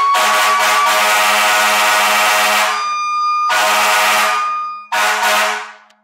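Fire-truck-style air horns blasting a loud chord, broken off about two and a half seconds in and then sounded again in two shorter blasts. Under them a siren holds a steady high wail that carries through the gaps. Everything stops just before the end.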